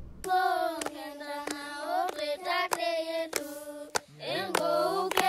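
Voices singing held notes over rhythmic hand clapping, a clap roughly every half second. A lower voice joins a little after four seconds in.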